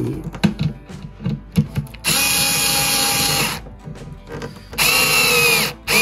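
Cordless drill/driver driving screws into a plywood panel: light knocks as the parts are handled, then two short runs of the motor's whine, one about two seconds in and one near the end, the second sagging slightly in pitch before it stops.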